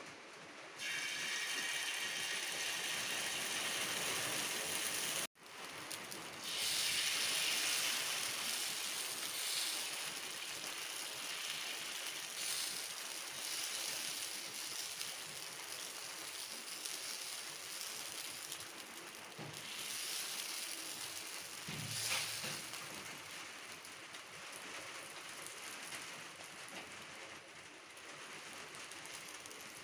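Rice and black gram batter sizzling on a hot tawa as it is poured and spread into a round with a spoon. The hiss jumps up about a second in, breaks off for an instant, then slowly dies down.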